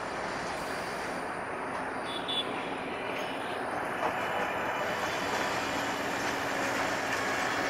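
Tista Express passenger train running past on metre-gauge track: a steady noise of wheels on rail and rolling coaches, growing slightly louder in the second half.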